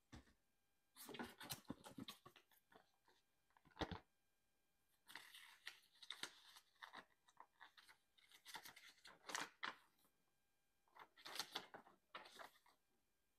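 A folded paper instruction leaflet handled and unfolded by gloved hands: bursts of crisp paper rustling and crinkling with short pauses between them, and a sharp tap about four seconds in.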